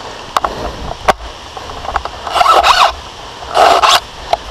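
Airsoft gunfire in woodland: two sharp single snaps, then two louder, longer noisy bursts about two and a half and three and a half seconds in.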